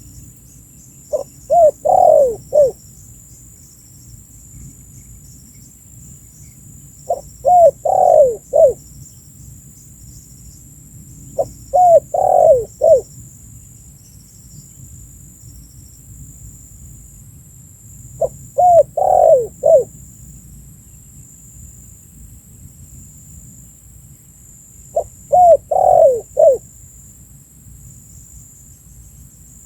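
Spotted dove (tekukur) calling, a repeated cooing phrase of a few short notes running into longer coos, given five times about six to seven seconds apart.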